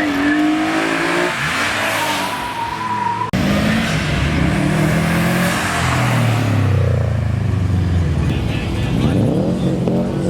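Car engines and exhausts revving as cars accelerate away, in two clips: first an engine note that climbs in pitch, then, after a sudden cut about three seconds in, a deeper exhaust note that rises and falls.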